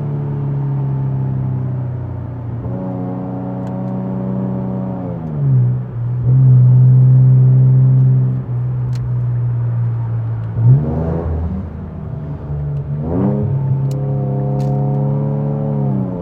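Infiniti Q60's twin-turbo V6 running on the road, its pitch rising and falling as the revs change several times. The engine is loudest and steady for a couple of seconds near the middle, then gives two quick revs.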